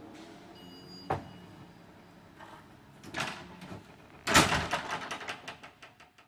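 Metal door hardware: a sharp click about a second in, then a loud clank just after four seconds followed by a quick rattle that fades away.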